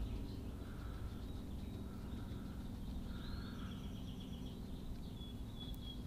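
Faint birds chirping and trilling outdoors, a few short calls in the second half, over a low steady background hum.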